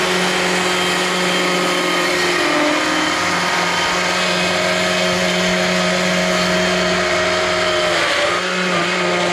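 Gas chainsaw running at high revs while plunge-cutting into a small carving log. The engine note holds steady, dipping briefly twice, once about two and a half seconds in and again around eight seconds.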